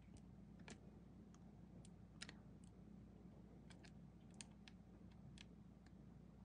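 Faint, irregular little clicks of fingernails picking at the edge of sticky-backed holographic film, trying to peel off its backing.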